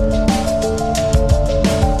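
Background music with a steady electronic beat and a repeating melody.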